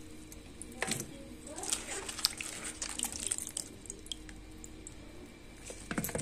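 Water sloshing and dripping as cauliflower florets are rubbed and rinsed by hand in a steel bowl of water, with a louder splash or knock about a second in and another near the end.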